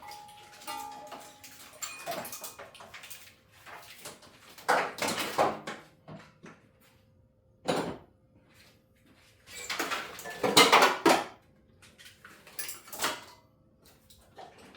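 Metal tools and car parts clanking and rattling as they are handled, in several separate bouts. The longest and loudest comes about two-thirds of the way through.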